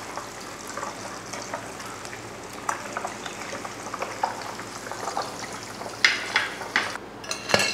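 Hot oil sizzling and crackling steadily around a cornflake-crusted chicken patty frying in a pan. Near the end comes a short louder noise and then a sharp one as the patty is lifted out with a wire skimmer.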